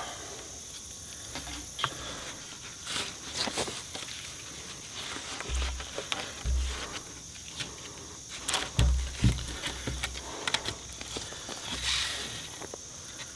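Thin cordage being wrapped around wooden poles and pulled tight with a stick: scattered rustles, scrapes and clicks of cord dragging over bark, with a few low bumps. A steady high insect drone runs behind it.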